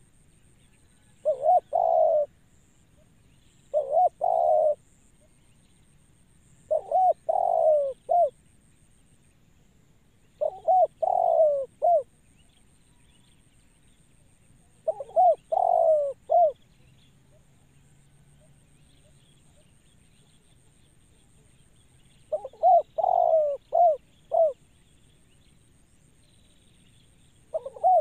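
Spotted dove cooing: about seven short phrases of a few rolling coo notes each, spaced a few seconds apart, with a longer gap in the middle.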